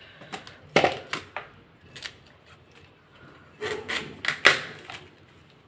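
Cauliflower being cut up, the blade cracking through stalk and florets in a series of sharp, irregular knocks and snaps. They come in two clusters, about a second in and around four seconds in.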